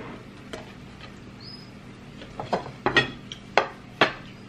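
Several sharp clicks and taps, a faint one about half a second in and a cluster of four louder ones in the second half, as gloved hands handle a ceramic plate of rice.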